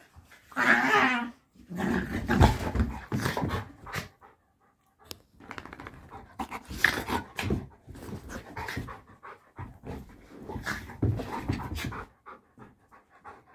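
Two dogs play-fighting: panting and scuffling in uneven spells with short pauses, with a brief pitched vocal sound about a second in.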